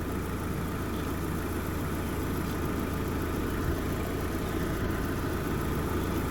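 Fiat 500 engine idling steadily with the air conditioning running on full, as it is kept while the system is recharged with refrigerant.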